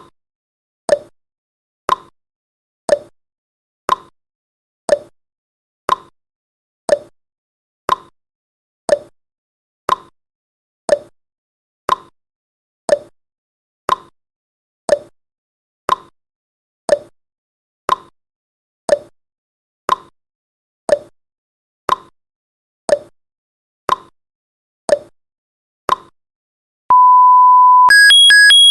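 Countdown timer sound effect: a clock-like tick-tock, one sharp tick every second alternating higher and lower. Near the end it gives one steady beep about a second long, then fast, high alarm beeping as time runs out.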